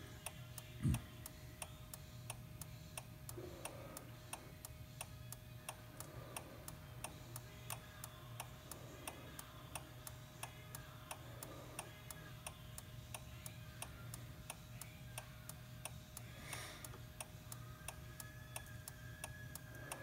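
Honda GL1800 Gold Wing turn-signal flasher ticking steadily, several even ticks a second, over a low steady hum, with a dull thump about a second in. The signal keeps flashing because an add-on timer unit holds it on while speed is decreasing.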